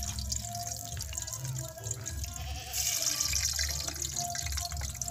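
Hot cooking oil sizzling in a frying pan over a wood fire as scotch bonnet pepper is put in to fry for flavour; the sizzle grows louder about three seconds in.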